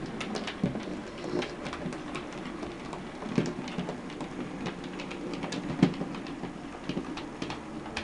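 Hornby K1 OO gauge model steam locomotive running slowly on the layout track: a steady motor hum with irregular clicks of the wheels over rail joints and pointwork, two louder clicks about three and a half and six seconds in.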